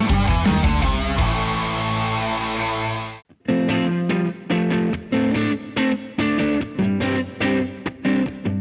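Rock band playing. A loud held chord rings for about three seconds and stops abruptly. After a brief gap, distorted electric guitar comes in with short, choppy chords in a stop-start rhythm.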